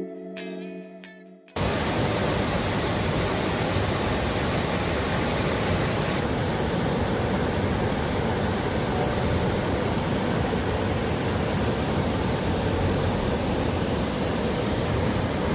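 Soft guitar music, then an abrupt cut about a second and a half in to the steady rush of a waterfall, an even, unbroken roar.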